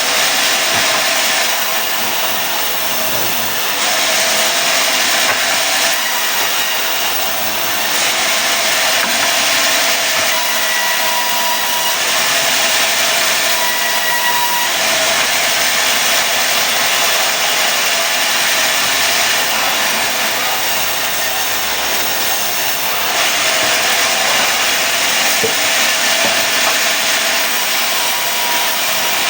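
Sawmill blade cutting through mahogany, sawing it into boards: a loud, continuous sawing noise that grows brighter in several long stretches as the blade works through the wood.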